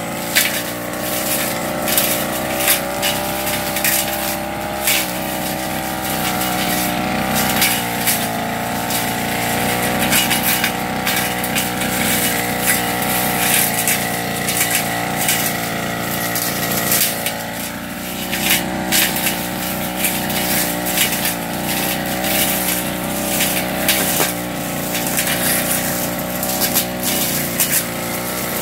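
Backpack brush cutter engine running steadily at high speed while the cutting head slashes through grass and weeds, with many sharp ticks and crackles as it strikes stems. The engine eases briefly about two-thirds of the way through, then picks up again.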